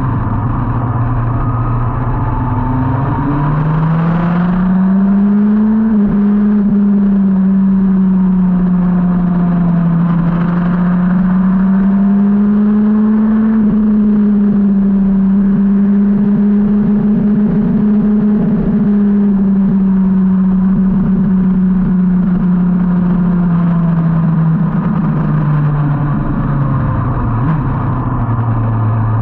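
2003 Yamaha R1's inline-four engine running hard at track speed, with wind noise. The engine note climbs about five seconds in as the bike accelerates, holds high through a long fast stretch with small rises and dips, and drops near the end as the bike slows.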